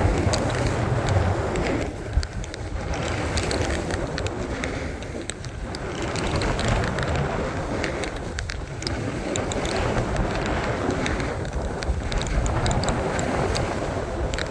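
Snowboard scraping over snow while riding downhill, with wind rushing on the microphone; the noise eases briefly about every three seconds.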